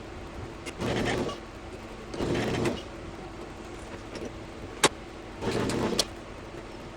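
Three short bursts of a small power tool's electric motor, each about half a second long, over a low steady hum, with one sharp metallic click between the second and third bursts.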